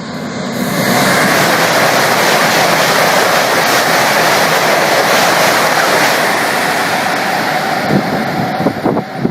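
High-speed train rushing past: a loud, even roar that swells about a second in, holds, then eases off, with a few low thumps near the end.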